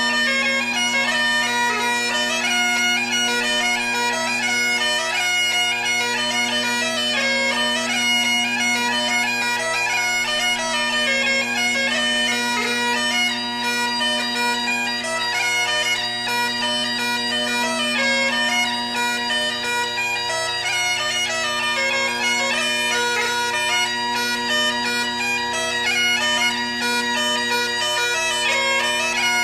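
Bagpipe music: a steady low drone held under a busy, shifting melody.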